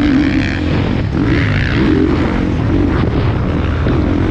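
Motocross bike engine running hard, its pitch rising and falling again and again as the throttle is worked, over a steady low rumble, heard from an onboard GoPro.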